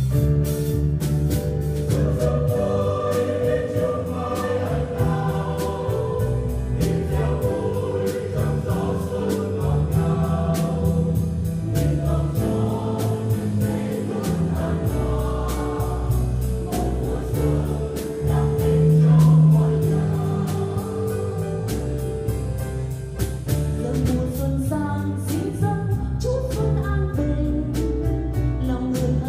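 Mixed church choir singing a Vietnamese Lunar New Year hymn in parts, with drums keeping a steady beat under the voices.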